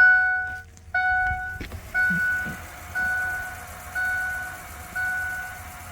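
Car warning chime: a single steady tone repeating about once a second, each chime lasting about half a second and slowly getting softer.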